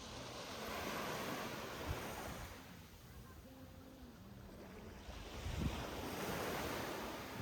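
Small Gulf surf waves breaking and washing up the sand, the rush swelling twice and fading between.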